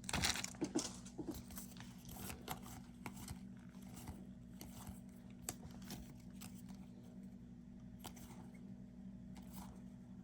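Faint, scattered clicks and rustles of trading cards and a foil pack wrapper being handled, a little busier in the first second or two, over a steady low hum.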